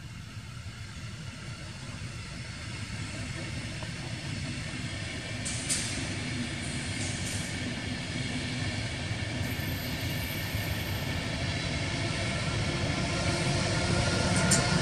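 Intercity passenger train rolling past on the rails, its rumble growing steadily louder as the electric locomotive pushing at the rear draws near. Two short sharp clicks, about six seconds in and near the end.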